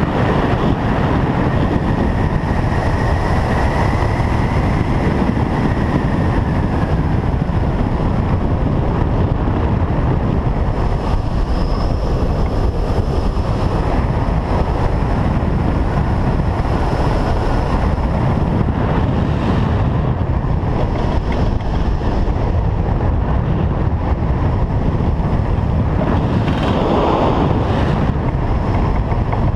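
Airflow rushing over the microphone of a camera mounted on a flying hang glider's wing: a loud, steady rush of wind buffeting. A faint high tone drifts lower over the first several seconds.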